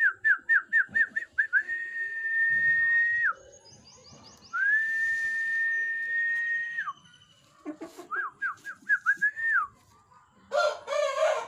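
A high whistled phrase heard twice: a quick run of short falling notes, then one long steady note that drops off at the end. About a second before the end comes a rooster's crow.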